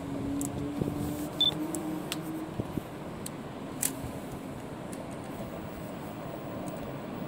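Steady outdoor city background noise heard from an elevated railway platform, with a faint hum over the first couple of seconds and a few light clicks.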